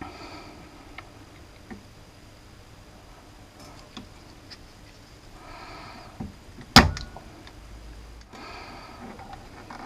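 Quiet handling of soldering tools over a radio's circuit board: a few faint ticks and taps, then one sharp loud click or knock about seven seconds in.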